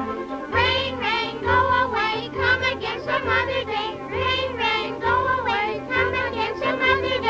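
Music: a sung vocal line with wavering pitch over a band accompaniment, with a steady bass beat about once a second.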